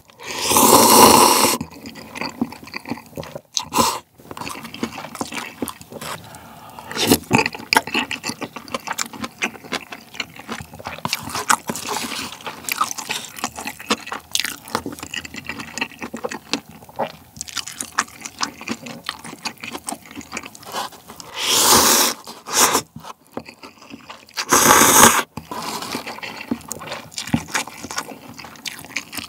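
A person slurping jjajang cup noodles loudly at the start, then chewing with wet smacks and small clicks of mouth and chopsticks, with two more loud slurps about three seconds apart near the end.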